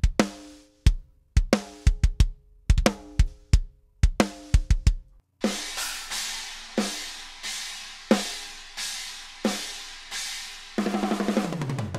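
A multitrack rock drum kit played back: dry, punchy kick and snare hits, the snare under slow-attack (Grab-mode) compression that lets its attack through. A little over five seconds in it cuts to a roomier kit sound with cymbal wash, with evenly spaced hits and a fast drum fill falling in pitch near the end.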